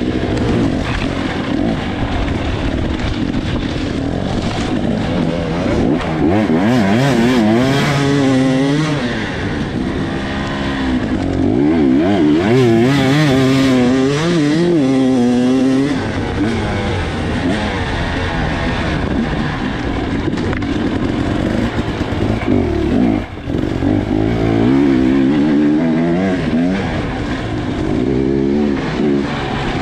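Off-road dirt bike engine, heard close up from the rider's helmet, revving hard and continuously. Its pitch rises and falls about twice a second as the throttle is worked through the trail, with a short dip in the middle.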